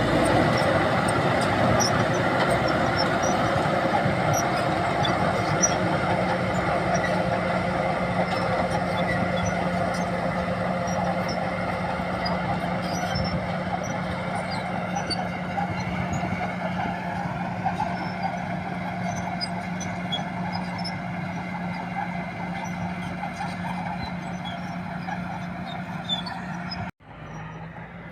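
A bulldozer from around 1960 running, a steady engine tone under dense mechanical noise that slowly grows quieter. About a second before the end the sound cuts off sharply and comes back much quieter.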